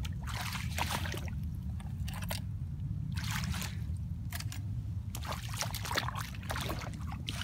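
A person wading through shallow pond water, feet and legs sloshing in short, irregular splashes over a steady low rumble.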